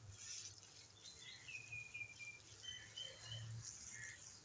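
Butter faintly sizzling and bubbling in a frying pan as it is stirred and cooked down into desi ghee, with a few faint high chirps in the background.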